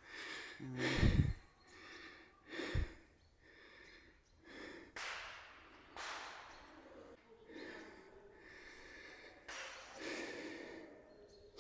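A person breathing heavily: a series of separate noisy breaths, the longest about five seconds in, with two short low thuds about one and three seconds in.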